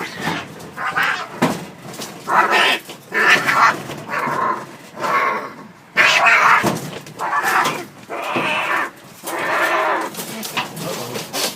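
Cats fighting: a quick run of about a dozen loud, short yowls and screeches, one after another.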